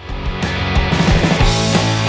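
Loud rock music with electric guitar and drums, starting suddenly.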